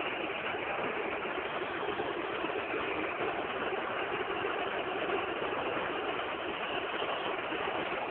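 Steady noise of a large football stadium crowd awaiting a penalty kick, an even wash of many voices without a single cheer or sudden rise.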